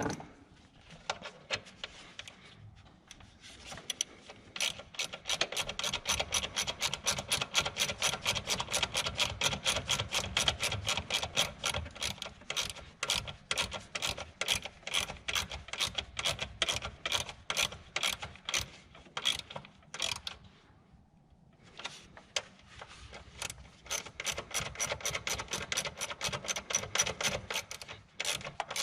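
Hand ratchet wrench clicking rapidly and evenly as a fastener is turned, in two long runs with a short pause about two-thirds of the way through.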